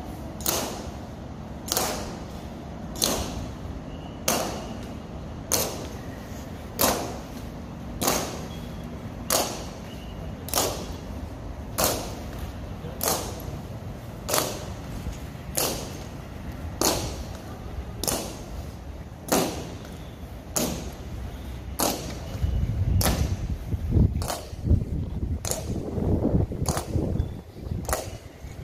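Honor guards marching in slow ceremonial step, their boot heels striking the pavement in sharp, evenly spaced clacks about once every 1.3 seconds. In the last few seconds a louder low rumbling noise rises under the steps.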